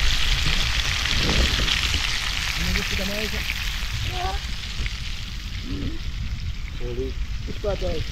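Whole fish frying in hot oil in a pan over a wood fire: a steady, crackling sizzle, fainter in the second half.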